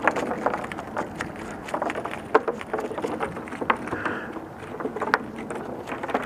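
A freshly landed jacksmelt flopping on the wooden planks of a pier, a run of irregular sharp slaps and taps over a steady outdoor background hiss.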